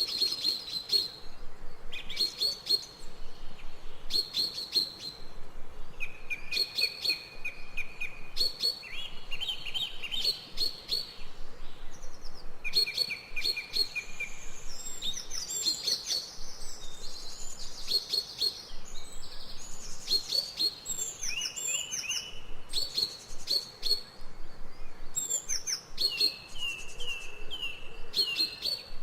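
Several birds calling: repeated runs of short, evenly spaced chirps at two pitches, with a busier, more varied song in the middle stretch.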